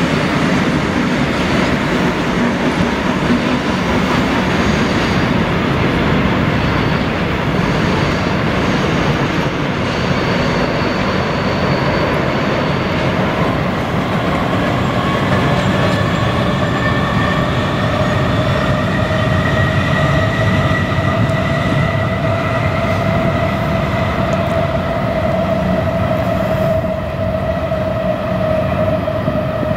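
Trains crossing a steel truss railway bridge: a continuous rumble of wheels on the bridge. From about halfway through, a steady whine slowly rises in pitch and stops shortly before the end.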